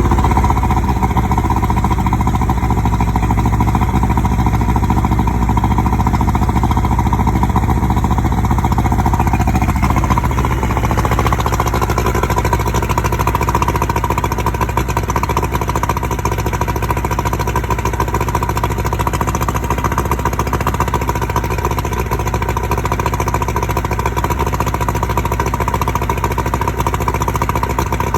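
Freshly rebuilt 1987 Johnson 70 HP two-stroke outboard motor, its cylinders bored .030 over, running steadily just after its first start. Its note shifts slightly about ten seconds in.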